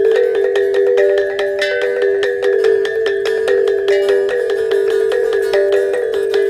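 Traditional music on struck, tuned percussion: a quick, steady run of ringing notes on a few repeating pitches.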